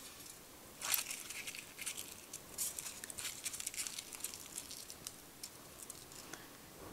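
Aluminum foil crinkling as torn pieces are crumpled by hand into loose balls: faint, irregular crackles, densest in the first few seconds and thinning out toward the end.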